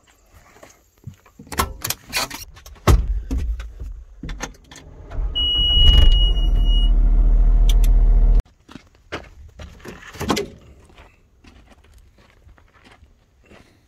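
Clicks and knocks, then a Caterpillar compact track loader's diesel engine running as a steady drone heard from inside its cab, with a high electronic beep lasting about a second and a half. The engine sound cuts off suddenly.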